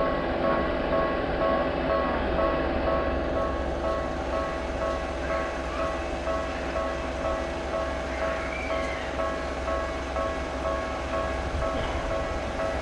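A Japanese railway crossing alarm rings in a rapid, even, repeating pattern over the steady low rumble of a passing train.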